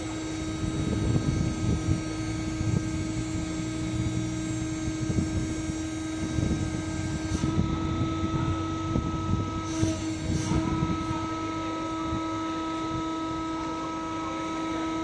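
Hydraulic scraper running: a steady machine hum over an irregular low rumble and knocks. A higher steady tone gets louder about halfway.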